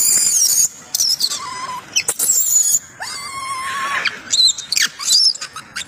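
Infant macaque screaming in distress: a run of shrill, high-pitched wavering screeches broken by short gaps, with a lower, steadier wavering cry about three seconds in. It is a weaning tantrum, the baby crying because its mother is refusing to let it nurse.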